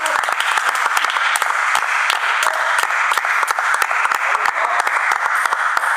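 Spectators applauding: many hands clapping in a steady, dense patter.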